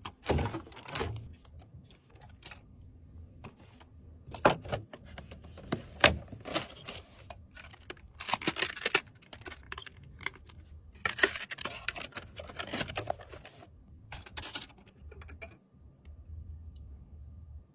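Irregular clicks, taps and light knocks of computer hardware being handled and fitted together during a PC build, coming in short clusters.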